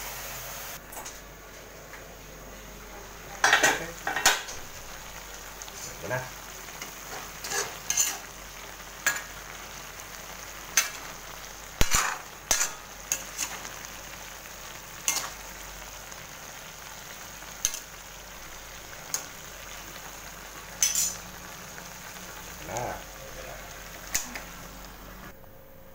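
Vegetables and fried milkfish sizzling as they are sautéed in a metal wok. A metal ladle knocks and scrapes against the pan at irregular moments while stirring.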